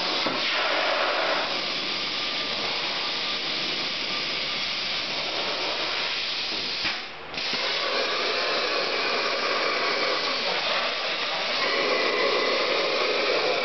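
Steady rushing hiss of shop air and machinery, with a short dropout about seven seconds in. Near the end a CNC plasma torch cuts the steel sheet and the hiss grows a little louder.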